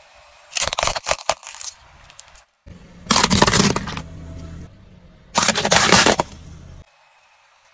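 A car tyre rolling over and crushing small plastic objects. A quick run of sharp plastic cracks comes about a second in. Two louder crunching, crackling bursts follow about three and five and a half seconds in.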